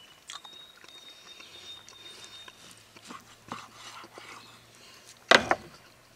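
Knife and carving fork slicing smoked pork shoulder on a wooden cutting board, with faint scrapes and clicks. About five seconds in, something is dropped onto the board with a short, loud knock.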